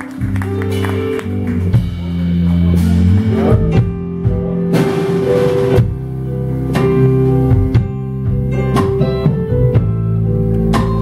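Live rock band playing: electric guitar, bass guitar, drum kit with cymbal crashes, and keyboard, held notes ringing over the beat.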